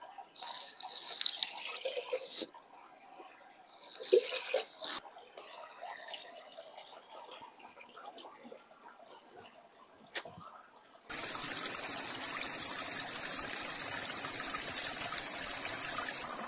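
Water splashing as a steel cup is dipped into a shallow stream, twice in the first five seconds. From about eleven seconds in, a steady rush of stream water running between rocks, close to the microphone.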